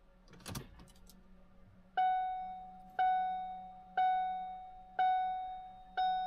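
Car's electronic warning chime, a bell-like tone that strikes and fades, repeating once a second from about two seconds in, after a brief click about half a second in.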